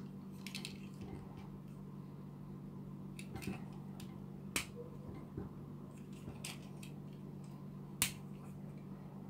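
Plastic parts of a transforming toy robot figure clicking and snapping into place as its legs and wheels are folded by hand; a few sharp clicks, the loudest about halfway through and near the end. A steady low hum runs underneath.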